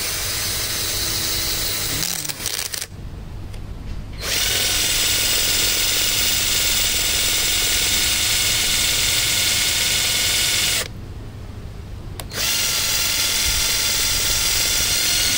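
Foster FK 38-21 21 V cordless drill running a twist bit into the end grain of a hard log. It whines steadily in three spells with short pauses, the longest about six seconds. The bit makes little headway because the wood is too hard for the drill's low power.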